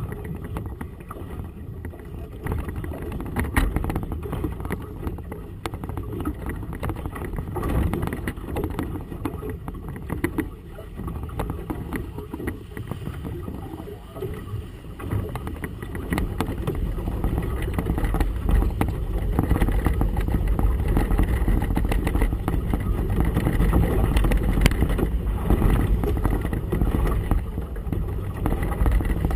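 Wind and choppy water against a boat's hull: a heavy low rumble with scattered knocks and splashes, louder from about halfway through.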